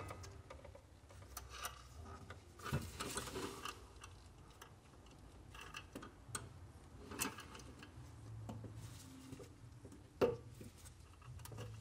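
Scattered small clicks, knocks and rubbing as gloved hands work the throttle cable end and its fitting at the top of a Suzuki Samurai's accelerator pedal arm, with the sharpest click near the end.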